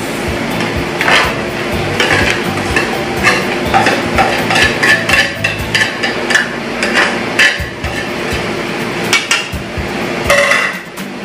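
Metal spatula stirring minced chicken in an aluminium stockpot, scraping and knocking against the pot with repeated sharp clacks.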